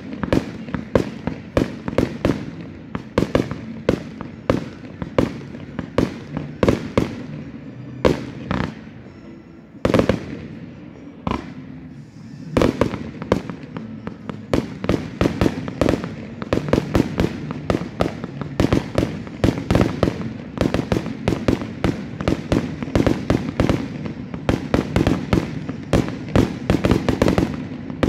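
Fireworks display: aerial shells and firecrackers going off in quick succession, several bangs a second, with a brief lull about ten seconds in before the bangs grow dense again.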